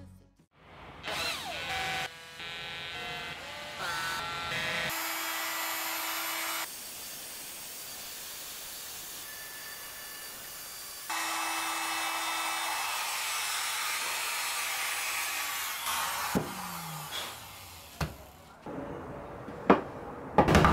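Compact trim router cutting a recess for an inlay into a hardwood cutting board, running steadily in two long passes with a falling whine as it spins down. A few sharp knocks follow near the end.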